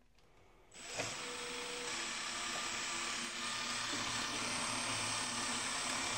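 Electric drill driving a wire stripping machine, starting under a second in and running steadily with a faint high whine as a cable is fed through and its outer jacket slit by the blade.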